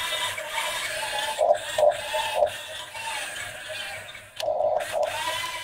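Huina 1:16 RC excavator's small electric gear motors whirring as the cab swings round and the arm moves, the pitch wavering and dipping briefly a few times.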